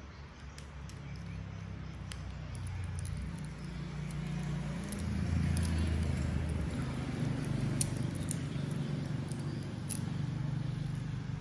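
A low engine hum that swells and fades, with faint small metallic clicks and taps over it.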